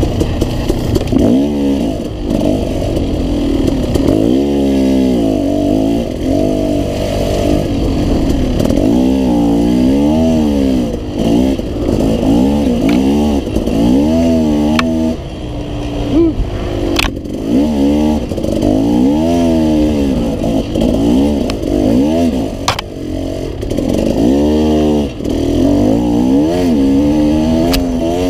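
Dirt bike engine in a hare scramble, revving up and falling off again every second or two with no steady stretch. A few sharp knocks come through, about a third of the way in, just past the middle and about three-quarters of the way through.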